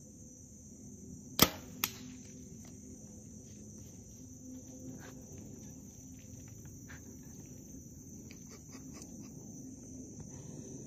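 A compound bow shot with one sharp snap, followed under half a second later by a second, fainter crack. Afterwards come scattered faint rustles and ticks, over a steady high drone of insects.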